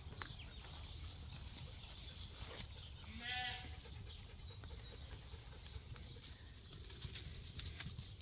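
A sheep bleats once, a short, high, wavering bleat about three seconds in, over faint outdoor background.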